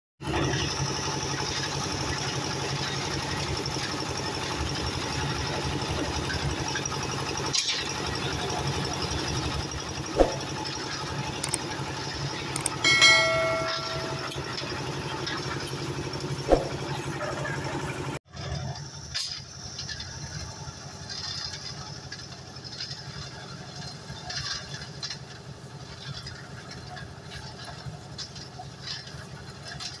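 Portable concrete mixer running steadily with a low engine hum, with a couple of sharp metal knocks and a brief high tone about halfway through. After a sudden cut about 18 seconds in, the mixer is quieter and more distant, with scattered clinks.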